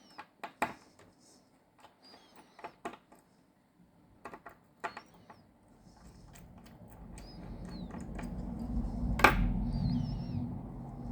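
Small repair tools clicking and tapping on the small metal and plastic parts of a smartwatch during disassembly, with faint short high squeaks. From about six seconds a low hum swells up, and one sharp click stands out near the end.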